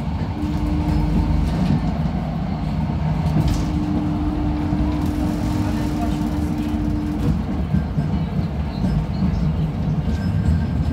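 An HCP 123N tram running along the track, heard from inside the car: a steady rumble of wheels on rail, with a motor hum that drops out and comes back a couple of times.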